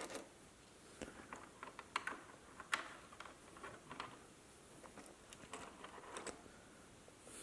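Faint, irregular clicks and taps of small plastic toy construction vehicles being handled and moved.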